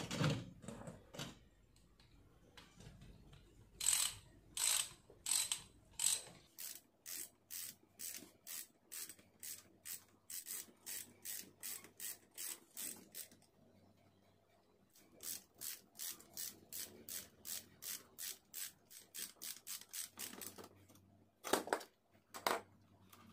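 Hand ratchet wrench clicking in even strokes of about two to three clicks a second, in two runs with a short pause between them, followed by two louder knocks near the end.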